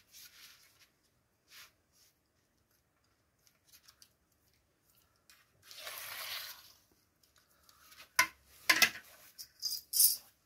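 Quiet handling sounds of cardboard and measuring tools: a brief scraping swish about six seconds in, then a run of sharp clicks and taps near the end.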